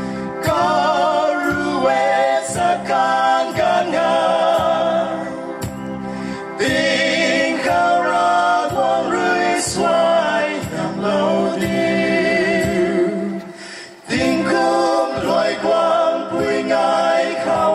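Three men singing a Rongmei song together through handheld microphones, their voices amplified.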